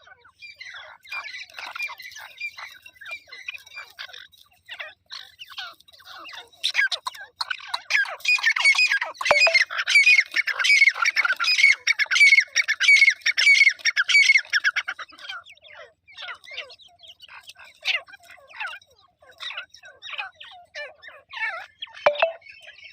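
A partridge calling over and over in quick, short harsh notes. The calling grows louder and denser for a long stretch through the middle, then thins back out to scattered notes.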